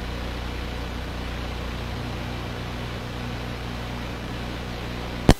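Steady hiss and low hum of police aircraft cabin noise, heard through the onboard radio and intercom recording. A single sharp radio click comes near the end.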